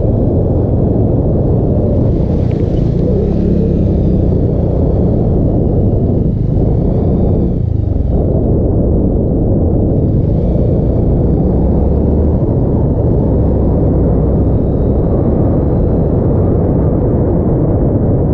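Motorcycle riding through shallow floodwater and on along a muddy track, its engine running steadily under a loud, unbroken low rumble of wind on the handlebar-mounted camera.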